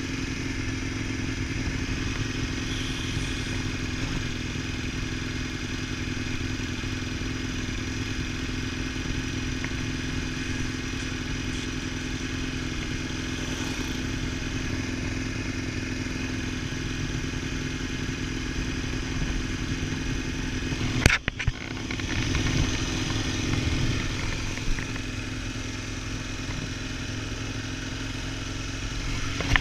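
Ducati Multistrada 1000DS's air-cooled L-twin engine running at a steady road speed, with wind rush on a bike-mounted camera. About 21 seconds in there is a sharp knock and a brief dropout, after which the engine note rises and falls a few times.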